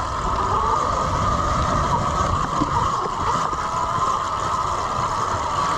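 Electric dirt bike's motor whining at a steady pitch under load, over rough low rumble from wind and terrain on the microphone.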